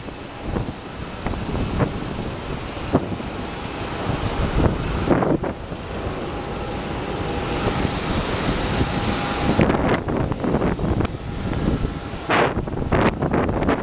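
Wind buffeting the microphone over the steady rumble of an airport apron, with a faint steady whine in the middle for a few seconds.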